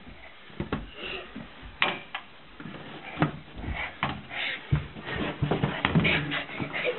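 A soccer ball being kicked around a carpeted room: irregular thuds and knocks, with feet scuffing and shuffling in between.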